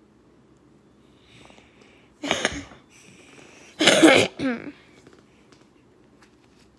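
A person coughing twice, about a second and a half apart. The second cough is louder and trails off in a short vocal sound.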